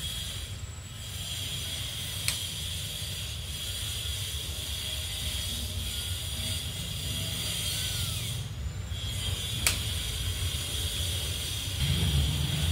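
Steady outdoor background noise: a low rumble under a steady high hiss, with two faint clicks. The rumble grows louder near the end.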